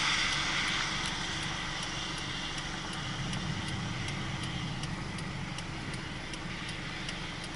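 Steady road and engine noise inside a moving car's cabin, with faint high ticks about three a second.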